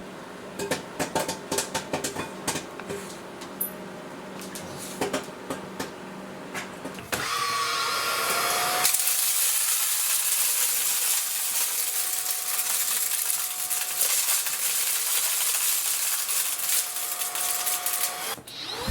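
Scattered clicks and knocks, then about a third of the way in an Aposen H250 cordless stick vacuum motor starts and spins up with a rising whine. It then runs steadily with a loud hiss of suction airflow until shortly before the end.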